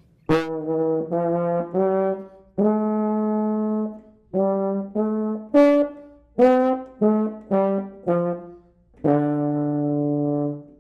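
Euphonium playing a slow phrase of separate notes, including two longer held ones, with a poor, uneven tone. The notes swell and die away unevenly, the fault of having the lips too far apart and blowing unevenly at the sound.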